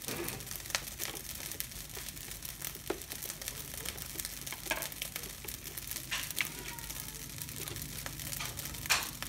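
Fried rice sizzling faintly in a pan over a gas burner, a steady hiss, with scattered light clicks and rustles and one sharper click near the end.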